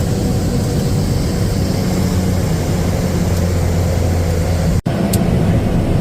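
Steady drone of a small propeller plane's engine, heard loud from inside the cabin on the approach to the runway, with a brief cut in the sound about five seconds in.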